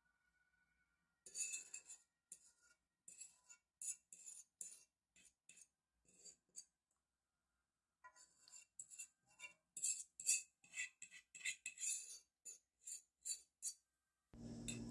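A kitchen utensil scraping and clicking against a casserole dish as mashed potatoes are spread and smoothed. The short scrapes come sparsely at first and grow quicker and denser in the second half.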